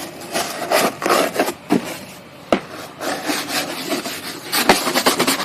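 Stiff scrub brush scrubbing a soapy car door panel in quick, uneven rasping strokes, with a sharp tap about two and a half seconds in.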